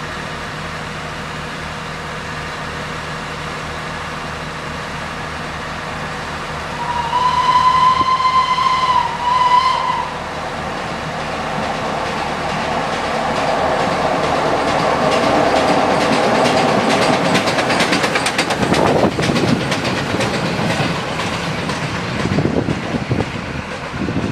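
Diesel train idling with a steady hum, then a steam locomotive's whistle blows one steady note for about three seconds. Irish 2-6-0 steam engine No. 461, running light with no train, then comes closer, growing louder with the clatter of wheels over rail joints.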